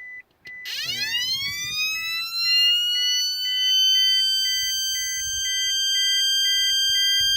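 An electronic tone from a Toyota Prius's dashboard speaker sweeps up in pitch about a second in and settles into a steady, siren-like high whine. Under it, a short beep repeats about twice a second. It sounds like an ABS brake alarm, but it comes from the car's radio going bad.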